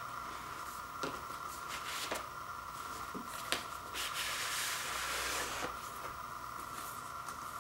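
Cardboard LP record sleeves being handled: a few light taps and clicks of card, then card sliding against card for about a second and a half, starting about four seconds in, over a steady background hiss.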